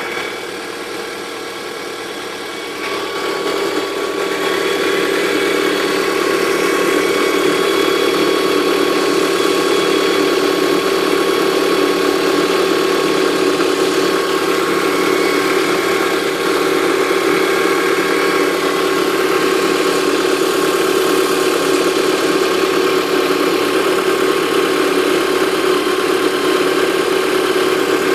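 Lada Granta's VAZ-21127 1.6-litre engine idling from cold in frost, with a steady high whistle (squeak) over the engine note. It gets louder about three seconds in. The owner says this cold-start whistle fades as the engine warms up and is absent in warm weather.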